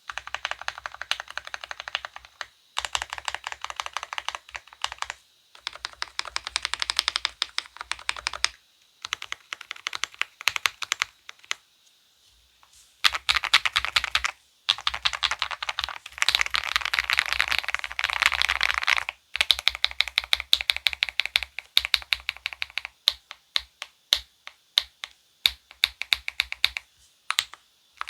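Fast typing on an Akko 5075B mechanical keyboard with Krytox-lubed Akko CS Lavender Purple tactile switches and a tape-modded PCB, giving thocky keystrokes. It comes in quick runs with short pauses, turning to slower, separate key presses in the last third.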